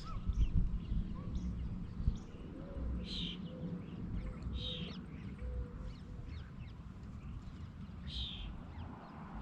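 Birds calling in the background: three short calls spread out, over a low rumbling outdoor background.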